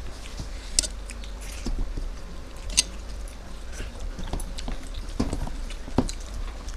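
Close-up eating sounds: chewing and biting, with scattered sharp clicks, the sharpest about a second in, near three seconds and at six seconds.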